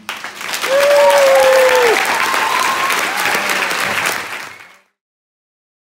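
An audience applauding loudly, with whoops and cheers over the clapping. The applause fades out about four and a half seconds in.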